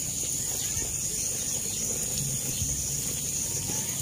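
Garden hose spraying water onto a bed of seedlings, a rough steady rush, with a constant high-pitched insect drone behind it.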